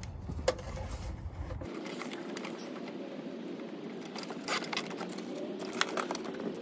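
Light clicks and rustling from hands working in an engine bay as plastic cable ties are fastened around a wiring harness, with a few short bursts of ratcheting ticks as the ties are pulled tight.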